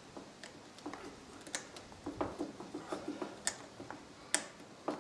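Sharp metallic clicks and a run of small quick taps as a hand tool works at the end of a Hewland Mk 8 racing gearbox, undoing the split pins.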